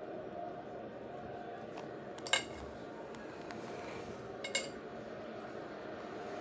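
Steady stadium crowd noise from a televised football match, with two sharp metallic clinks, one about two seconds in and another about two seconds later.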